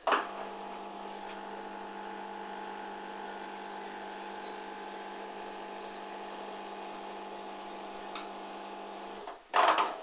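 Hoover Dynamic front-loading washing machine starting its spin stage: a steady machine hum with a whine that neither rises nor falls, opening with a sharp burst. The hum cuts off about nine seconds in, followed by a loud, brief noisy burst.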